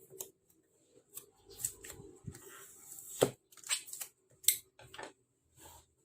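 Hands handling a keyboard set and its packaging: an irregular scatter of clicks and short rustles, with two sharper knocks about three and four and a half seconds in.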